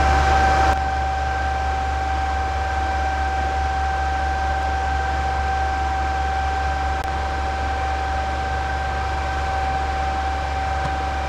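Steady whir of cooling fans with a constant high-pitched whine and a low hum, as from running mining hardware. The noise steps down slightly less than a second in, then holds level.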